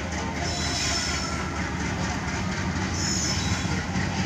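An approaching WDM-3A diesel-electric locomotive and its train: a steady low engine and track rumble, with two brief high squeals, about half a second in and again around three seconds.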